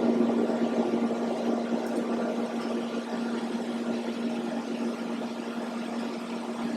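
TIG welding arc burning on carbon steel under argon shielding gas: a steady hiss with a constant hum from the welder, easing slightly in the first couple of seconds and then holding level.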